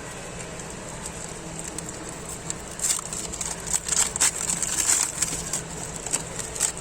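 Crinkling and rustling of foil trading-card packets being handled, a run of short crackles from about halfway through.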